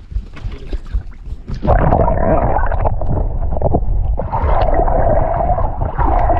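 Water heard through a submerged action camera: a loud, muffled rush with gurgling and a steady mid-pitched hum, starting about a second and a half in. Before that, quieter knocks and wind from above the water.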